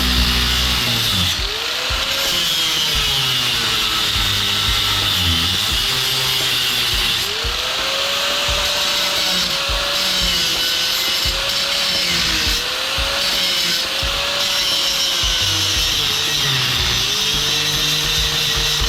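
Electric power tool running continuously while cutting or grinding into a metal part of a furnace gas regulator. Its motor pitch dips and recovers again and again as it bites under load.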